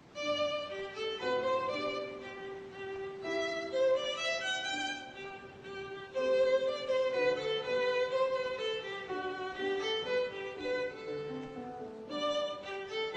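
Violin playing a melody of held notes, starting suddenly.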